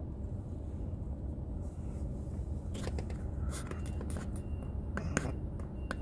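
Low steady rumble inside a car, with a run of irregular sharp clicks and scrapes from about three seconds in.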